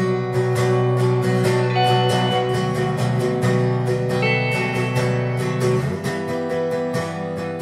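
Guitar music, strummed and picked, as a soundtrack. The low bass notes drop out about six seconds in.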